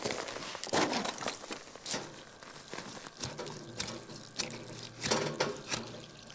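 Water poured from a plastic jug onto gravelly dirt at the base of a copper ground rod, splashing and soaking in irregularly, with some scraping and crunching of gravel as hands work the rod into the wet ground.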